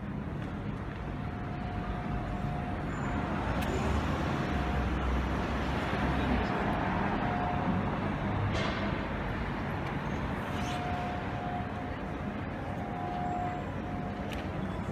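Street ambience: steady road traffic noise with people's voices in the background, and a low rumble swelling about four seconds in and fading a couple of seconds later.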